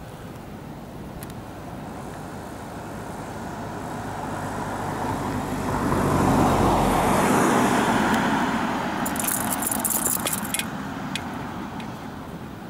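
A vehicle passing by: a rushing noise that swells over a few seconds, peaks in the middle and fades away. Near the end there is a short run of faint high clicks.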